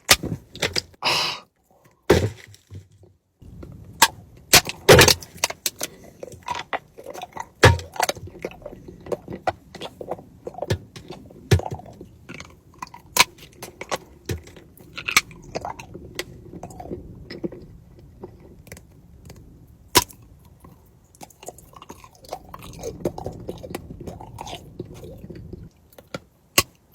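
Close-miked biting and chewing of wax candy: sharp clicks and cracks with wet chewing between them, repeated throughout.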